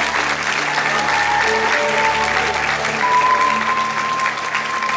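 An audience clapping over music, with a long held melody note in the music from just past halfway.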